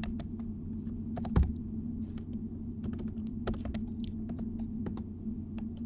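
Computer keyboard keys clicking in irregular bursts of typing over a steady low hum, with a single duller low thump about a second and a half in.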